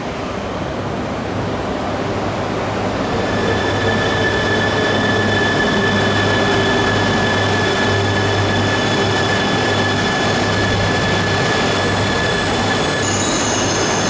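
A Yamagata Shinkansen Tsubasa E3-series train pulls into the platform and slows to a stop. Its running noise grows louder over the first few seconds, and a steady high-pitched wheel and brake squeal sets in about three seconds in and holds as it brakes.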